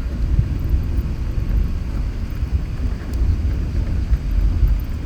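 Steady low rumble inside the cabin of an Airbus A380 rolling on the ground after landing, with no distinct tone.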